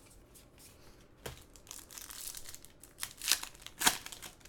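Trading-card pack wrapper being crinkled and torn open by hand, with a few sharp crackles, the loudest about three and four seconds in.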